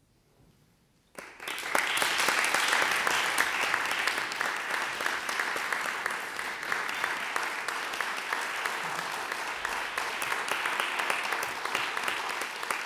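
Near silence, then audience applause breaks out suddenly about a second in and goes on as steady, dense clapping.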